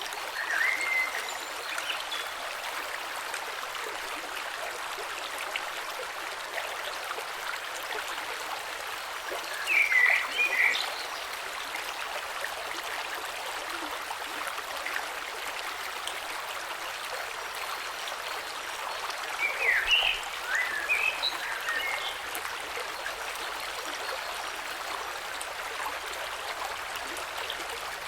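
Gentle creek below a waterfall flowing steadily over stones, an even rushing hiss. Three brief, louder clusters of short chirp- or gurgle-like sounds stand out: about a second in, about ten seconds in, and around twenty seconds in.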